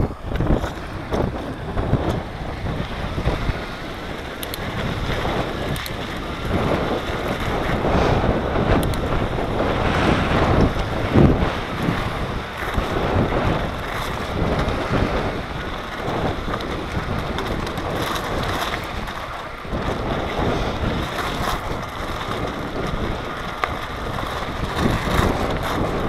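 Wind buffeting the microphone of a camera on a moving bicycle, with the knobbly tyres rolling and crunching over shingle and shells, giving many short irregular knocks.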